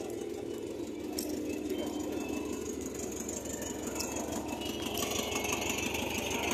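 Volkswagen Combi engine idling steadily, growing louder with more hiss near the end.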